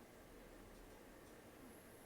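Faint snoring and heavy nose breathing of a sleeping elderly cat, barely above the room's background hiss.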